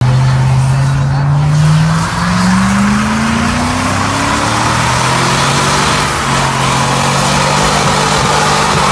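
Chevrolet Silverado pickup doing a burnout: the engine is held at high revs while the rear tyres spin and squeal on the pavement. One engine tone climbs steadily from about two seconds in.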